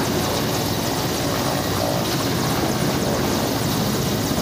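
Mi-17 military transport helicopter flying low and close: steady, loud rotor and engine noise with no change in level.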